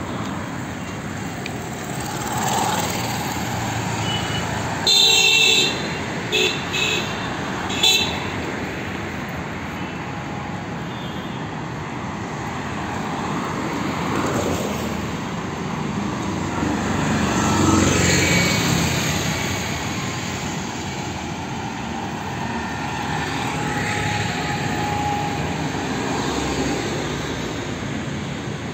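Steady road traffic noise with vehicles passing. A vehicle horn honks: one long blast about five seconds in, then three short toots over the next few seconds.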